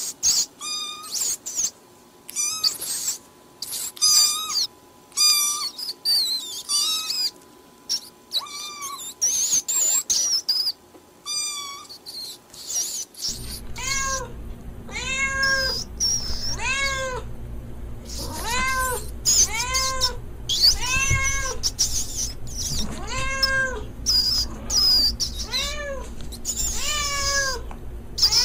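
A cat meowing over and over. The calls are short and high-pitched at first, then turn lower and longer about halfway through, each rising and falling in pitch, about one a second, with a low hum underneath.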